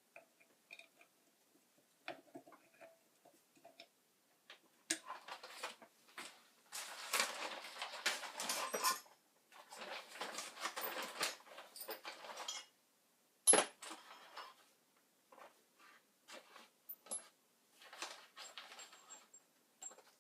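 Intermittent scraping and rustling from hands working small parts, with scattered light clicks and one sharp knock about thirteen seconds in.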